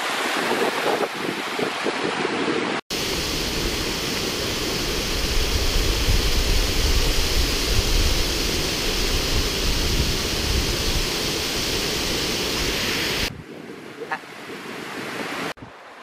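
White water of Wairere Falls rushing over the rock lip, a steady loud rush with wind buffeting the microphone through the middle stretch. Near the end it drops suddenly to a quieter rush.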